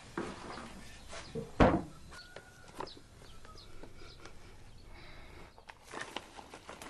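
Kitchen handling sounds. A sharp wooden thunk comes about a second and a half in. Then a paper flour bag rustles as it is opened, and flour is poured into a wooden bowl near the end.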